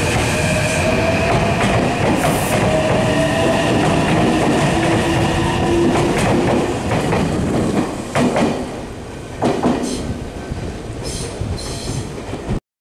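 Meitetsu 9100-series and 3150-series electric train pulling out: the traction motors' whine rises steadily in pitch as it accelerates, over the rumble of the cars rolling past. Two loud clacks of wheels over rail joints come about eight and nine and a half seconds in, and the sound cuts off suddenly near the end.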